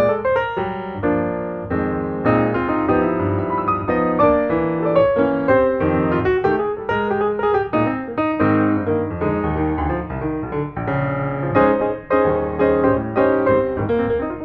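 Background piano music: a busy run of quickly changing notes.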